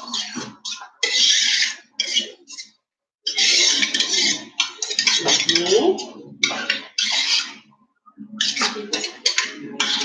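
A stainless-steel mixing bowl clanking and scraping against a stand mixer as it is handled, in short irregular bursts.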